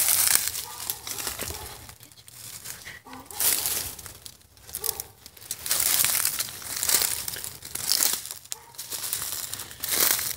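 Footsteps crunching through dry leaf litter on a forest floor, an uneven step about every second.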